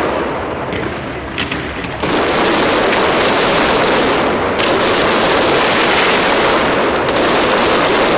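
Fireworks display: rapid, overlapping bursts and crackling blend into a continuous loud barrage, easing briefly in the first two seconds, then picking up again at full density.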